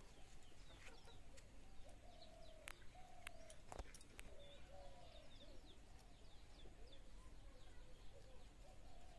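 Faint clucking of chickens and chirping of small birds, with a few sharp clicks.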